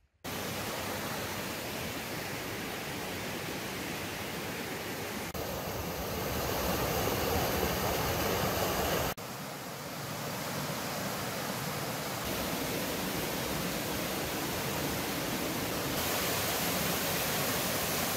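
Waterfalls and rocky cascades: a steady rush of falling water that changes abruptly in loudness and tone several times as one fall gives way to another.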